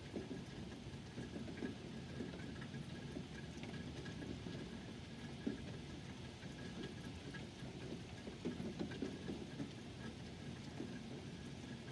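Steady rain falling, with many small drops pattering close by and one slightly louder drop about halfway through.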